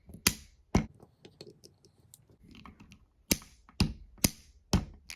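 Sharp plastic clicks and taps of small suction-cup toy figures being handled and set down on a hard surface: two in the first second, then a run of five evenly spaced, about two a second, near the end.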